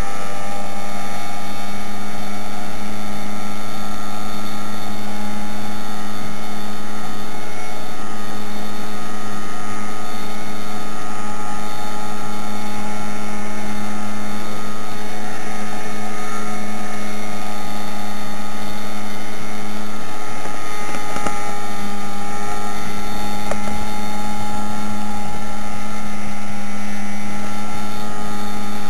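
Motorboat engine running flat out, loud and steady, its pitch rising a little in the first couple of seconds and then holding even.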